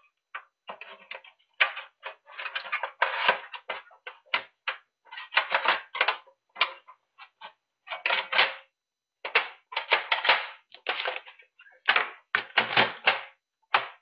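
Sheet-metal top cover of a Hikvision DS-7608NI-E2/8P NVR being worked onto its chassis: a long run of irregular metal clicks, scrapes and rattles as it is slid and pushed into place.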